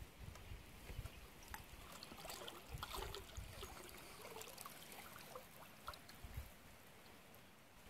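Faint water trickling and dripping around a canoe on still water, with scattered small clicks and splashes.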